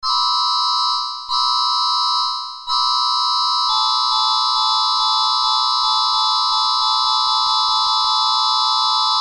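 Emergency alert broadcast tone: a chord of steady electronic tones sounded twice briefly, each time fading away, then held for about six seconds. Under it, faint ticks come faster and faster toward the end.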